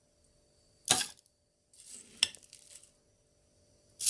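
Kitchen utensils knocking against a mixer jar as soaked rice is put into it: a sharp knock about a second in, a short rustle of rice going in with a click about two seconds in, and another click near the end.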